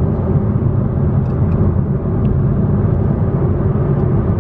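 Steady rumble of road and engine noise from a car driving at speed, heard from inside the cabin.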